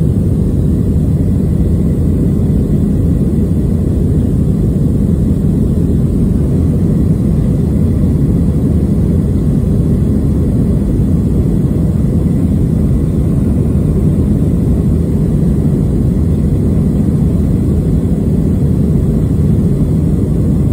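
Jet airliner's engines and airflow heard from inside the cabin during the initial climb after takeoff: a loud, steady, low roar.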